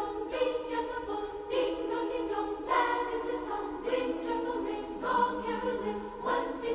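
Choir singing on the soundtrack, held chords that change about once a second.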